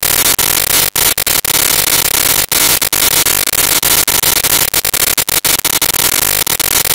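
Loud static hiss like white noise, with no tone or voice in it, cutting out for an instant now and then.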